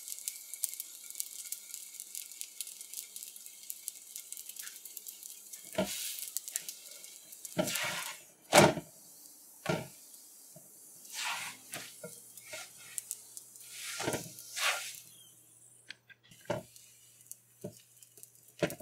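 Oil roti sizzling on a hot cast-iron tawa while a spatula presses and works it. Several sharp knocks and scrapes come through the middle, the loudest of them about halfway in. The sizzle fades out near the end.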